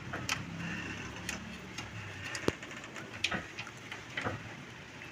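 Light, irregular clicks and knocks of metal parts being handled as a front sway bar is guided by hand into its rubber bushings and mounts, about half a dozen over a few seconds, the sharpest about halfway through.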